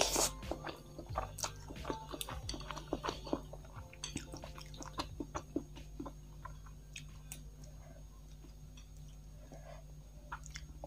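Close-miked chewing of a mouthful of soft instant cheese noodles: a burst of slurping as the noodles go in, then many wet mouth clicks and smacks. The clicks are dense for about the first half and thin out towards the end.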